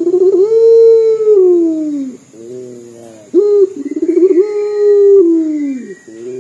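A domestic ringneck dove (puter) cooing loudly: two long drawn-out coos likened to crying. Each opens with a short rising note and a rapid quavering stretch, then holds a long note that slides down at the end.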